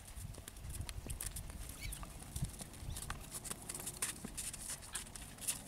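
Horses' hooves knocking on pond ice in a scattered, irregular run of sharp clicks as the horses shift and step while drinking.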